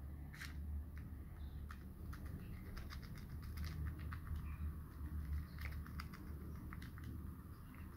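Dried crushed chili flakes shaken from a jar into a plastic tub, falling as sparse, faint light ticks over a steady low hum.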